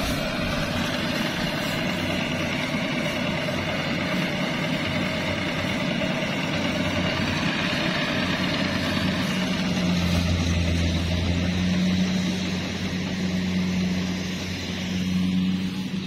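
Two-wheel walking tractor's single-cylinder diesel engine running steadily; the low engine note grows louder and heavier about ten seconds in as it pulls a trailer loaded with rice sacks.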